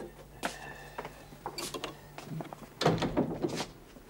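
Clicks and rattles of an old wall-mounted telephone being handled, with a heavier cluster of knocks about three seconds in.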